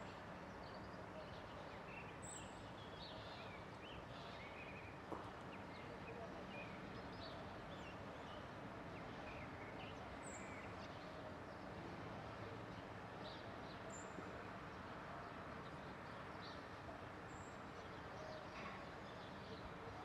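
Faint, steady city background noise, with scattered faint, short bird chirps and a single soft click about five seconds in.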